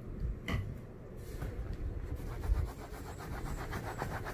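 A cloth rubbing back and forth over the leather of a motorcycle racing suit, wiping dirt off with leather cleaner. There are a few scattered scuffs at first, then quick, rapid rubbing strokes from about halfway on.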